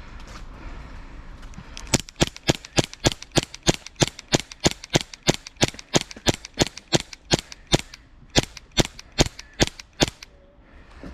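SSP18 airsoft pistol firing a rapid string of single shots, about three to four sharp cracks a second, for about eight seconds and then stopping.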